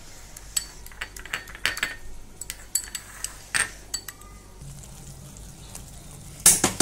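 A steel spoon clinks lightly and irregularly against a glass bowl as fresh cream is scooped out. Near the end comes a quick run of louder metallic knocks as the spoon hits the cooking pan.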